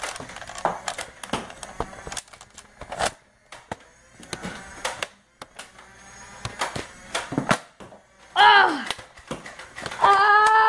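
Scattered clicks and knocks of plastic Nerf blasters being handled, then near the end two loud drawn-out vocal sounds from a child, each sliding down in pitch as it ends.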